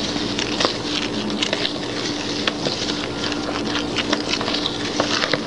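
A spoon stirring flour and other dry baking ingredients in a mixing bowl: a continuous gritty scraping full of small scrapes and ticks. A steady low hum sits underneath.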